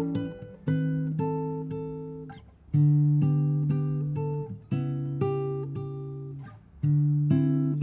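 Nylon-string classical guitar fingerpicking chords, a strong new chord about every two seconds with single notes picked between, each ringing and fading away.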